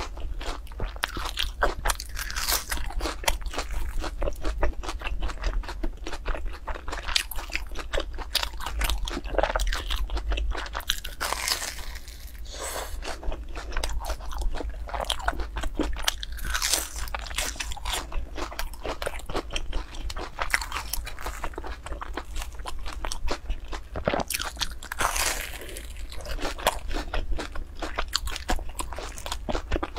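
Crunching and chewing of deep-fried, breadcrumb-coated rolls: bite after bite of crisp crust, one crackly crunch after another.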